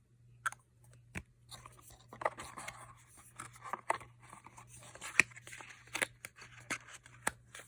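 Cosmetic packaging being handled by hand: crinkly rustling with scattered sharp clicks and taps, over a faint steady hum.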